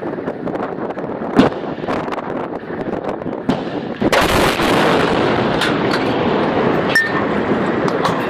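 Gunfire and explosion sound effects: a dense rumble with scattered sharp bangs, growing louder and fuller about four seconds in.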